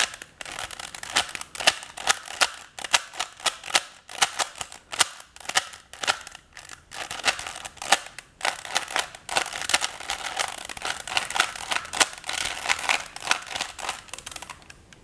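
Rubik's brand puzzle cube being turned quickly by hand: a dense, irregular run of loud plastic clicks and clacks. The noise is typical of a cheap, badly turning cube.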